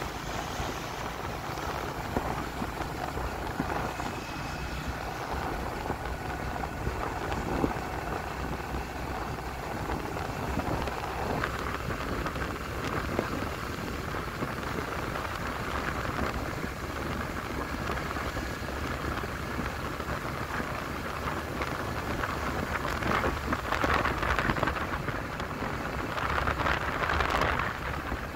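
Steady rushing noise of riding a motorbike on a wet road: wind on the microphone and tyres hissing on the wet tarmac under a faint engine whine, growing louder twice near the end.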